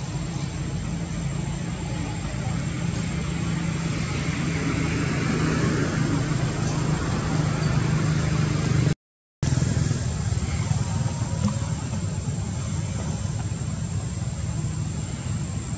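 A steady low motor drone, like an engine idling, with a constant thin high whine over it; the drone swells a little in the middle and cuts out for an instant about nine seconds in.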